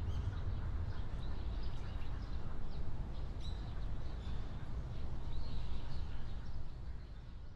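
Outdoor ambience: scattered short bird chirps over a low, steady rumble, fading out near the end.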